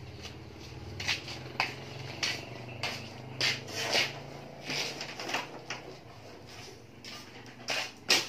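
Scattered light clicks and knocks, a few a second, over a low steady hum, with two louder knocks near the end.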